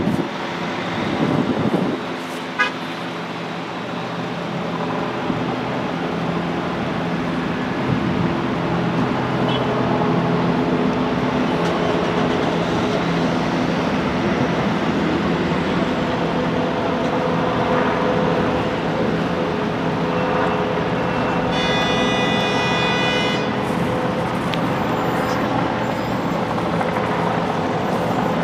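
Steady road traffic with engines running and vehicles passing. A vehicle horn sounds for about two seconds, roughly three-quarters of the way through.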